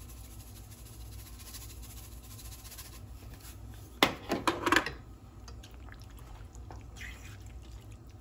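Cajun seasoning being shaken from its canister over a pan of creamy penne, with a quick run of sharp taps and rattles about four seconds in, the loudest sound; after that the thick sauce is stirred with soft wet sounds, over a steady low hum.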